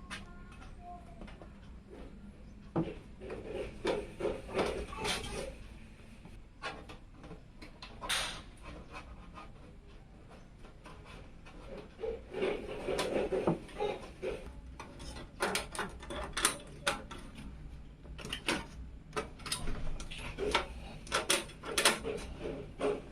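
Parts being handled and fitted during a PC build: irregular runs of plastic and metal clicks, knocks and rubbing, with a quieter stretch in the middle.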